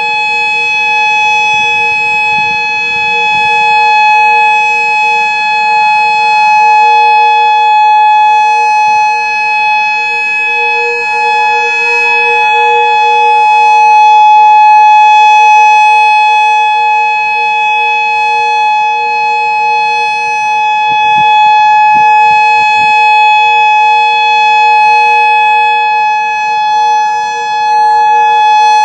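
Modulator 4016 electronic outdoor warning siren sounding its steady alert tone in a tornado siren test. It holds one unchanging pitch with gentle swells in loudness.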